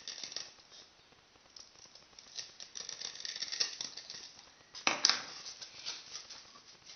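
Drawing compass with a pen point scraping a circle into a polystyrene foam sphere: a dry, scratchy rattle in patches. Just before five seconds in there is a sharp knock, then handling noise.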